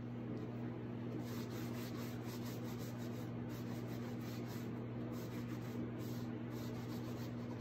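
Cloth rag rubbing back and forth over a waxed, painted moulding, wiping off dark wax in quick repeated strokes from about a second in, over a steady low hum.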